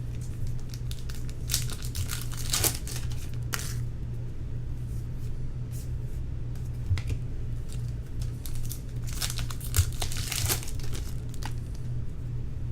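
Foil wrappers of baseball card packs being torn open and crinkled, in irregular bunches of crackles, over a steady low hum.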